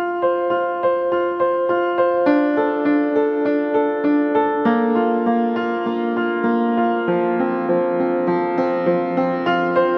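Background music: a piano or electric piano playing a gentle, evenly pulsed melody, about two notes a second.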